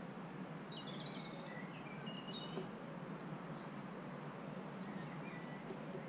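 Faint high chirps and short whistles of small songbirds over a steady background hiss, with a few soft clicks.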